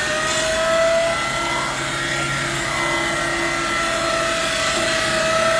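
Hydraulically driven knife-sharpening unit of a Fendt Tigo 90XR loader wagon running, its grinding discs rubbing against the knife bank: a steady, many-pitched whine over a rasping hiss, rising slightly as it gets up to speed at the start.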